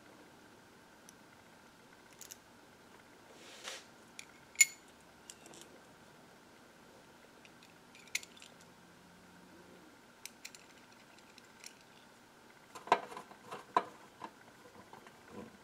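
Scattered small metal clicks and taps of screws, nuts and an aluminium tube-socket mounting plate being handled and screwed down onto a steel amplifier chassis, with a quick cluster of sharper taps near the end.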